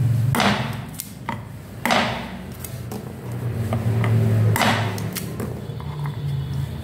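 Cleaver chopping raw chestnuts in half on a wooden chopping board: three sharp chops, about a second and a half to two and a half seconds apart, with lighter knocks of the blade and nuts between them. A low steady hum runs underneath.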